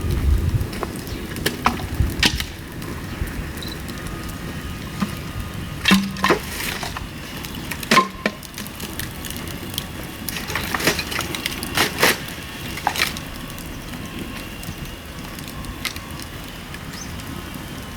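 Dry bamboo cracking and snapping: a dozen or so sharp cracks at uneven intervals, a few of them loud, over a steady hiss.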